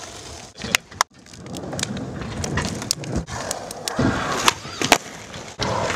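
Skateboard wheels rolling on concrete, with many sharp clacks and knocks of boards scattered throughout.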